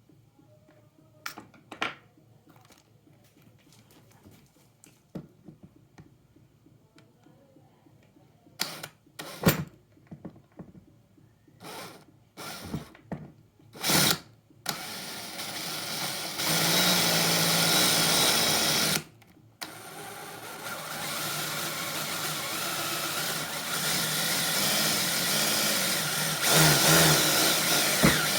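Handling clicks and knocks, then a cordless drill's motor running loudly from about halfway. It stops briefly and starts again, running steadily to the end.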